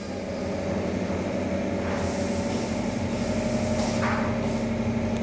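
A steady mechanical hum with a constant low tone and a fainter higher tone.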